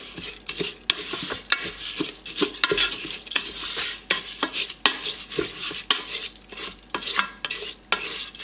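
Wet rinsed rice being stirred with a rice paddle in a rice cooker's nonstick inner pot: grains swishing and scraping, with frequent light clicks and knocks against the pot.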